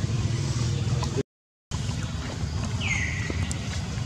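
Steady low wind rumble on the microphone, broken by a brief silent gap about a second in. Near the end a baby macaque gives one high, falling squeal lasting about half a second.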